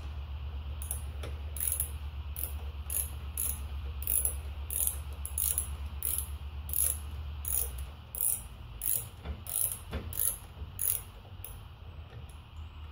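Hand socket ratchet being swung back and forth on a bolt, its pawl clicking in short bursts about two to three times a second, stopping about eleven seconds in.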